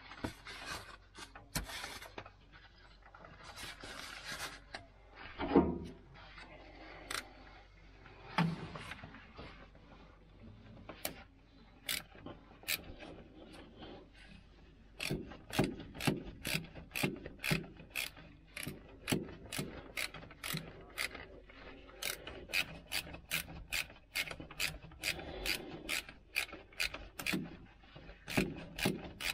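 Hand ratchet wrench working a bolt: after some scattered metal knocks and rubbing, it clicks in steady runs of about two strokes a second, with short pauses between runs.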